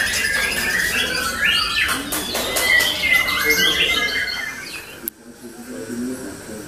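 White-rumped shama singing: a fast run of varied whistled and chirping phrases that cuts off suddenly about five seconds in.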